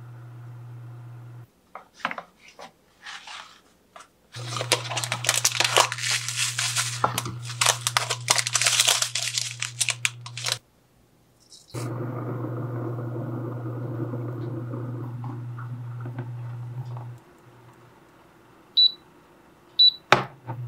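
Paper and foil tea packaging crinkling and tearing for about six seconds as a tea bag is unwrapped. Underneath is a low steady hum from the portable electric cooktop that switches on and off several times. Two short high beeps come near the end.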